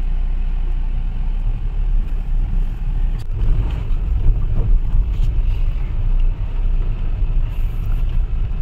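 Ford EcoSport heard from inside the cabin, driving slowly over a rough, rutted dirt track: a steady low rumble of engine and tyres, with a couple of short knocks about three and five seconds in.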